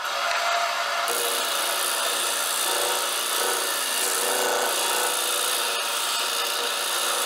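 Stationary disc sander running with a curved wooden workpiece pressed against its spinning sanding disc: a steady motor sound under the rasp of abrasive paper grinding wood.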